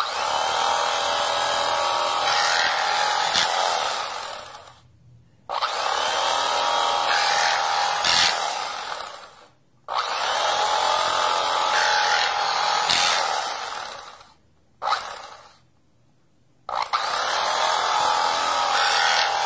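Cuisinart electric knife's motor running as its serrated blade saws through a tomato. It runs four times for about four seconds each, starting suddenly and winding down each time it is switched off, with a short burst between the third and fourth runs.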